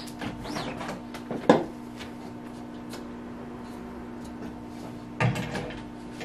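Manual screen printing press being worked: a squeegee scrape at the start, then two sharp knocks of the screen frame, about a second and a half in and again near the end, as it is raised off the shirt and lowered back down. A steady low hum runs underneath.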